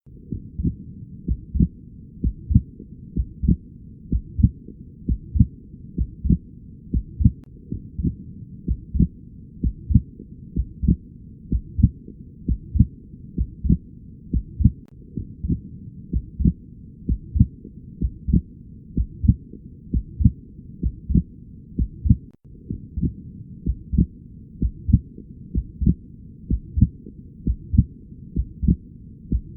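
Chest auscultation recording: regular heartbeat thumps, a little over one a second, over a steady low background.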